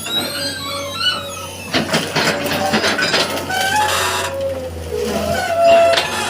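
Excavator engine running with a steady low hum under many short, high squeaks and chirps that rise and fall in pitch.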